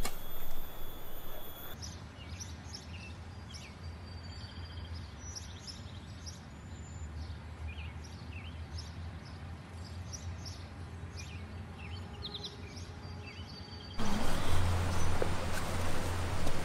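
Wild birds chirping: many short, high calls scattered over a low steady hum. About fourteen seconds in, the sound cuts abruptly to a louder steady rushing noise.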